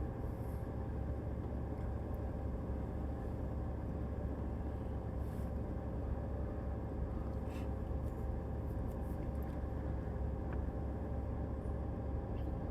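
A steady low rumble with a faint steady tone above it, and a few faint ticks about eight seconds in.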